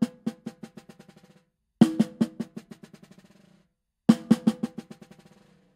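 A drumstick bouncing freely on a snare drum, held in a loose grip between thumb and forefinger. Three times the stick is dropped and rebounds in a run of strokes that get quieter and closer together until they stop.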